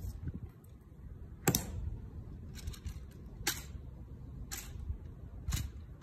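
Rifle drill by a Tomb of the Unknown Soldier sentinel: four sharp slaps and clicks of hands striking the rifle, about a second apart, as it is brought up and onto the shoulder. The first is the loudest, over a low outdoor murmur.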